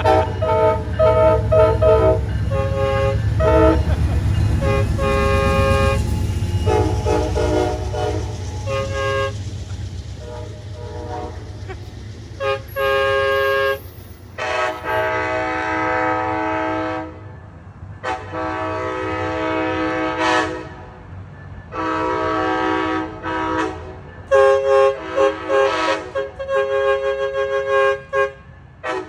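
Train air horn sounding a salute over the rumble of a passing train: a rapid string of short toots, then several long blasts about halfway through, and more quick toots near the end.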